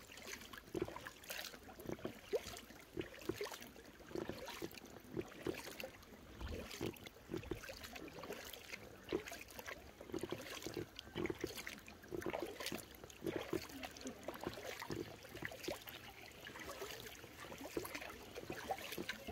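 Kayak paddle strokes in calm canal water: irregular small splashes about once a second, with water trickling and dripping off the paddle blades.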